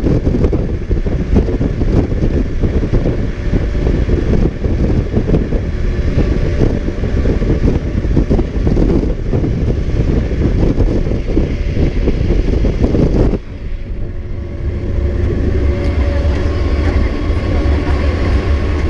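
Pickup-truck bus running fast along the road, a loud, rough rush of wind and road noise. About 13 seconds in it drops to a quieter, steadier engine drone with a few faint steady tones.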